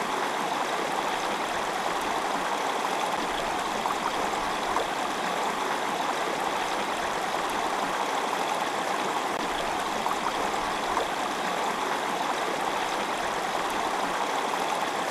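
Shallow stream water running over rocks: a steady, even rush that does not change.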